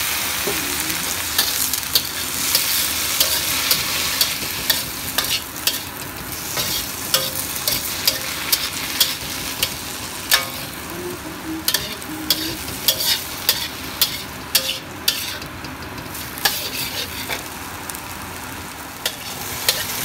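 Diced okra and carrot sizzling in a black wok while a metal spatula stirs, scraping and clacking against the pan many times over the steady sizzle. The sizzle is strongest in the first few seconds, from the splash of water just added to the drying stir-fry, and thins out later.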